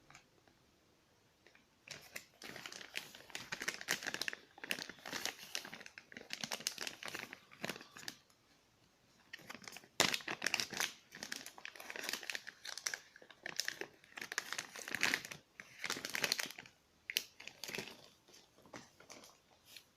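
Packaging wrapper being crinkled and handled in irregular crackling bursts, starting a couple of seconds in, with a short pause about halfway through.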